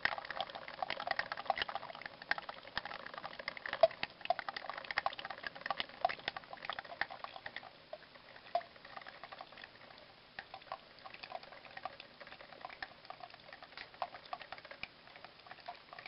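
Family Chef drip coffee maker brewing, its heater boiling the water through with a quiet, irregular crackle of small pops and spits that thins out about halfway through.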